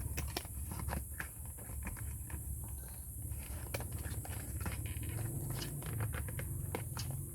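Toy packaging being handled and pulled apart: irregular crinkles and clicks over a steady low rumble.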